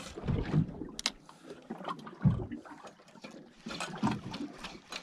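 Water lapping and splashing against a small boat's hull, with a few low knocks and a sharp click from handling the rod and reel.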